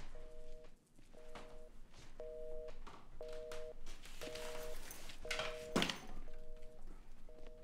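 Telephone busy signal: a two-note tone pulsing about once a second, half a second on and half a second off, in the North American pattern. A single thud comes about six seconds in, with a few softer knocks around it.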